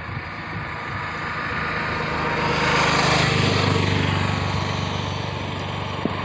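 A motor vehicle's engine running nearby, growing louder to a peak about three seconds in and then holding steady.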